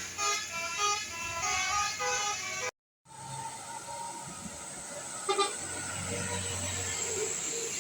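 Bus telolet horn, a multi-tone air horn, playing a quick tune of stepping notes. After a short cut it gives way to a steady hiss of traffic, with one brief horn blast about five seconds in.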